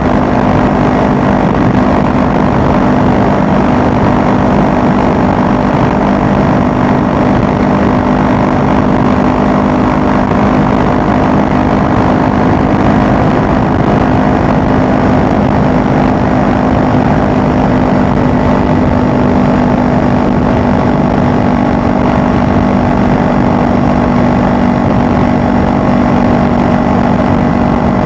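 Honda Rebel 500's parallel-twin engine running at a steady cruise at highway speed, with a constant drone and an even rush of wind and road noise.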